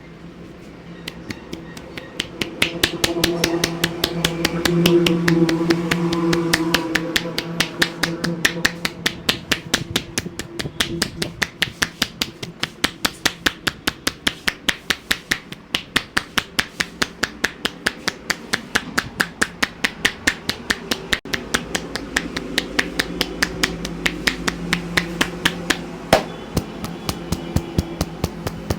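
A barber's hands striking a person's head in quick, even percussive slaps during a head massage, about four a second, over a steady low hum.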